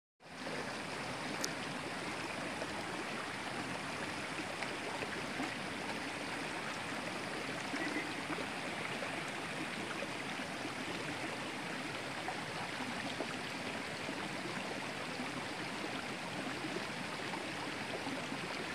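Shallow stream running over rocks and pebbles: a steady, even rush of water.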